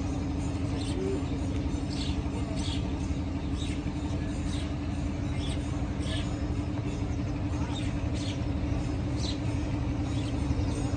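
Steady hum of a motorboat's engine running at an even pace, with faint short bird chirps over it.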